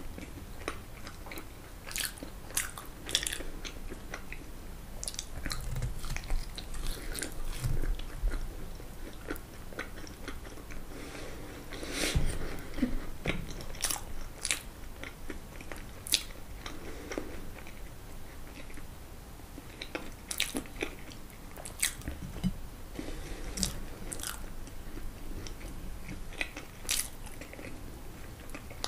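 Close-miked eating: biting and chewing of crisp fried food, french fries and fried mushrooms, with sharp crunches scattered irregularly among wet chewing sounds.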